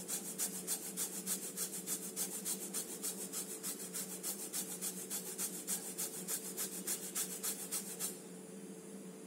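Lemon rind being rubbed over a flat metal hand grater to take off the zest: quick, even rasping strokes that stop about eight seconds in.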